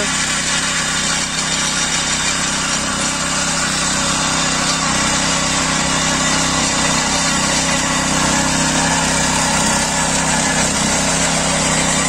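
Walk-behind rotary tiller's small engine running steadily under load as its tines churn dry soil.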